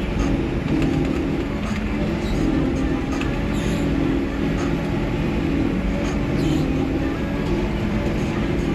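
Heavy diesel farm machinery running steadily, a constant engine drone that holds its pitch throughout.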